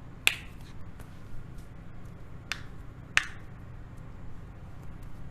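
Joints cracking: a sharp pop about a third of a second in, a softer one at about two and a half seconds, and another sharp pop just after three seconds, with faint small clicks between them.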